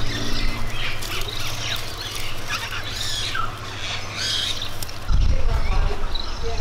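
Birds chirping and squawking, many short calls overlapping, over a steady low hum. A louder low rumble comes in about five seconds in.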